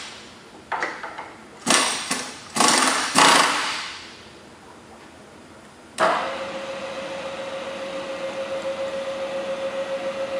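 Kurt pneumatic power drawbar on a Chevalier vertical milling machine firing in four short, loud air blasts. About six seconds in, the 3 HP spindle motor switches on with a click and runs with a steady whine and a fast, even pulsing.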